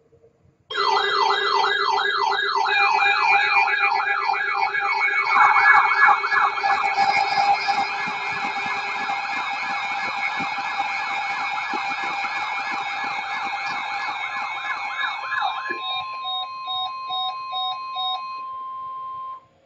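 Several electronic siren and alarm tones sounding together: a fast up-and-down wailing siren over steady tones, giving way near the end to a steady tone and a pulsing beep, then cutting off suddenly.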